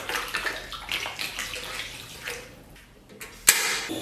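Cooking wine pouring and splashing into a wok of water. About three and a half seconds in, a sudden loud onset gives way to the steady hiss of the gas burner flame under the wok.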